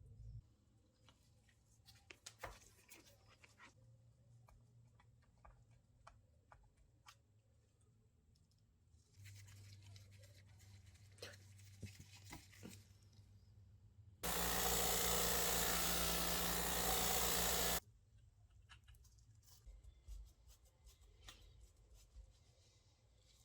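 Light clicks and scrapes of hand work on small parts, then a motorised tool runs steadily for about three and a half seconds, switched on and off abruptly.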